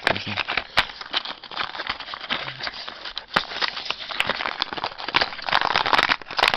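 Small cardboard box of fireball firecrackers being handled and opened by hand: dense crinkling, clicking and rustling of cardboard and paper, louder near the end.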